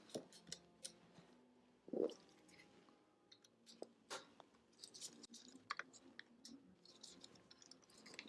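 Faint scattered clicks and small taps of computer parts and tools being handled during reassembly of a Mac Pro's CPU area, with one louder knock about two seconds in.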